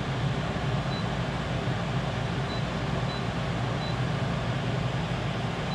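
Honeywell MM14CCS 14,000 BTU portable air conditioner running on high fan while cooling: a steady airflow whoosh over a low hum. Several faint short high beeps sound through it.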